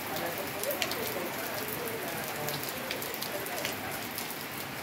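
Steady rain falling, an even hiss with many separate drops ticking sharply throughout.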